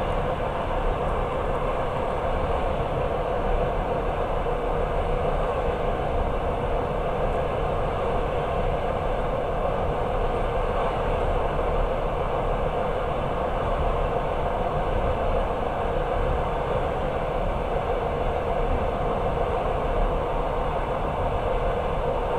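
Passenger train running steadily, its wheels rumbling on the rails as heard from inside the carriage.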